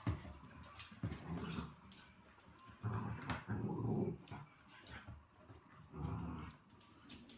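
Dogs play-growling in short bouts as they tussle, loudest about three to four seconds in and again about six seconds in, with claws clicking on a wooden floor.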